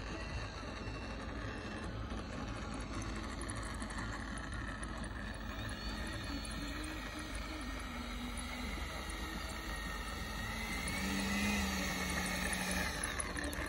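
Avios MiG-17 RC jet's 90 mm electric ducted fan whining as the model taxis on the runway, its pitch falling and then rising again with the throttle. It gets a little louder near the end as the jet comes closer.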